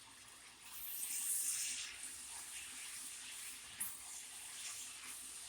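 Fried rice sizzling in a hot pan. The hiss swells about a second in as the sesame oil goes in, then settles to a steady sizzle.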